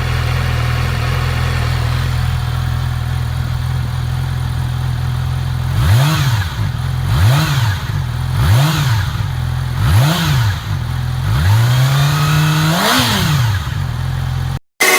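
Yamaha R6's 599 cc inline-four on its stock exhaust, idling steadily, then blipped four times just over a second apart, then given one longer rev that climbs and drops back to idle. It cuts off suddenly near the end.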